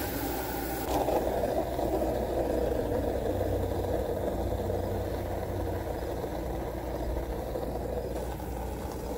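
Garden hose spraying water into a plastic bucket, filling it for a car wash: a steady splashing water noise with a low hum beneath.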